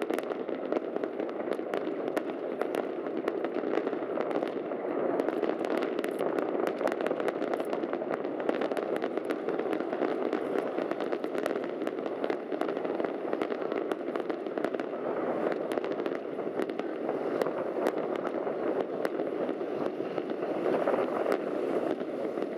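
Fireworks crackling densely and steadily: a continuous rain of small pops with no single big bang standing out.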